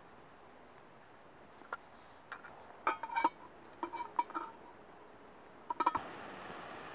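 Stainless steel camping mug clinking and knocking against a small metal stove stand as it is fitted, with short ringing tones. Near the end a quick run of clicks, then a steady hiss starts.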